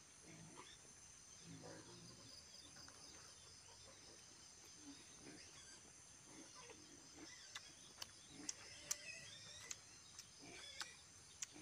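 Faint eating sounds: chewing and mouth sounds from two people eating by hand, with several sharp smacking clicks in the last four seconds. Steady high-pitched insect chirring underneath.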